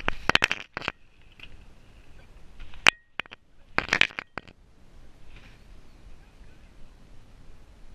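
Clinking and rattling from the golden retriever puppy's collar and harness hardware jostling against the chest-mounted camera as she moves: a burst at the start, one sharp clink around three seconds in and another burst about four seconds in.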